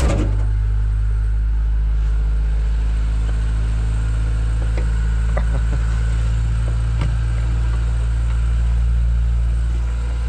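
A car engine idles steadily, warming up after a cold start in freezing weather. There is a short knock right at the start and a few faint ticks later.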